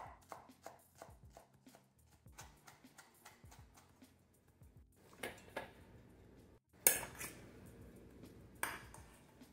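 Chef's knife chopping fresh herbs on a bamboo cutting board, a fast run of knocks at about five a second that thins out. Later a fork mashing softened butter against a wooden board, with two sharper knocks.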